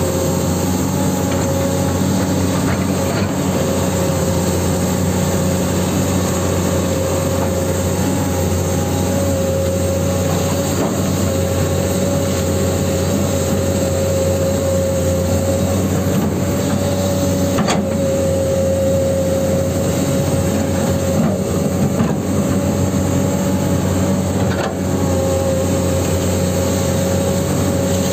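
Huina 1594 RC excavator running, with a steady whine over a low hum from its electric motors as it works the boom and bucket, and a few sharp clicks.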